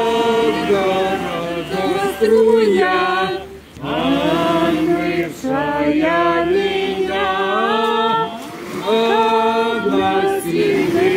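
A group of voices singing a Christian hymn unaccompanied, several voices together with long held notes, in phrases broken by short breaks.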